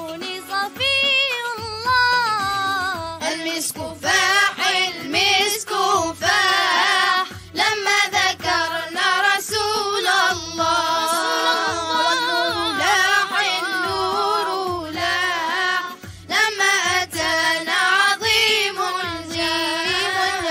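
Young boys and girls singing an Islamic nasheed together, their voices wavering with vibrato, over a steady low beat.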